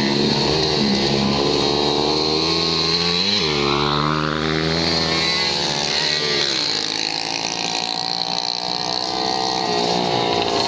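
Several motocross dirt bike engines revving as the bikes ride a dirt track, their pitch rising and falling with the throttle. One bike passes close about midway, its engine rising and then dropping in pitch as it goes by.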